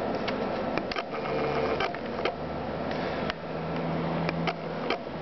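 Irregular sharp clicks and ticks, a dozen or so, over a steady hiss and low hum.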